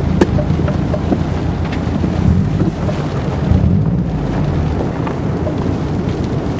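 Strong thunderstorm wind buffeting the microphone at an open car window: a loud, uneven low rumble, with a few sharp ticks scattered through it.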